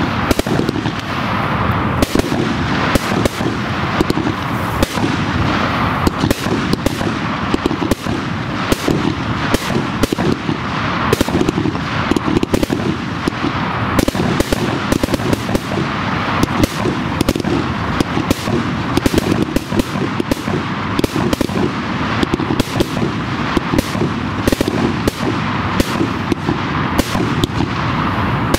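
Display fireworks, cakes and candles, firing a dense, rapid barrage of bangs and crackling with no pause.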